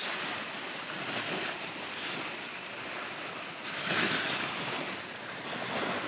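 Small Black Sea waves breaking and washing up the sand as a steady surf rush, with one louder wave about four seconds in.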